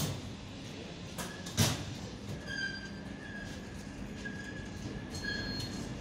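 ER9M electric multiple unit rolling slowly in along the platform. Two sharp, heavy wheel knocks come about a second and a half apart, the kind of knock the uploader puts down to a wheel flat. From about two seconds in, a steady high-pitched wheel squeal sets in over a low hum.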